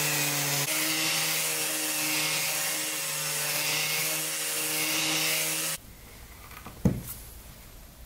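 Random orbital sander running steadily on a pine board, a hum with a whirring hiss. It cuts off abruptly about three-quarters of the way through, and a single sharp knock follows about a second later.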